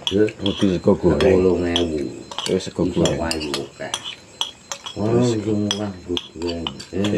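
Metal spoon clinking and scraping against a bowl as fried rice is scooped up and eaten, with a voice talking at times over it.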